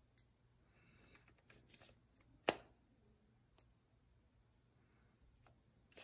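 Hands handling a GoPro Hero 9 battery and small plastic parts: faint rustling, then one sharp plastic click about two and a half seconds in, followed by a few lighter clicks.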